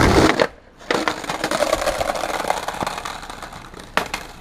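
Skateboard wheels rolling loud over rough paving. The noise cuts off suddenly about half a second in, then comes back about a second in as a rattling roll that slowly fades, with one sharp knock of the board near the end.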